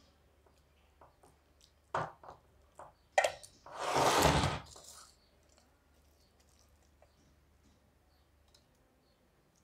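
A metal spoon knocking and scraping on stainless steel cookware as thick, grainy milk cake mixture is handled. There are a few sharp clinks around two and three seconds in, then a louder rough scrape lasting about a second, about four seconds in.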